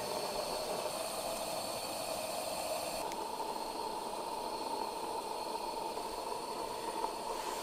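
Steady hissing noise; about three seconds in, a faint steady tone joins it.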